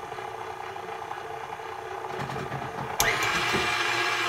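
KitchenAid stand mixer's motor running with a wire whip, humming steadily at low speed; about three seconds in there is a sharp click and it runs much louder, as the whip speeds up.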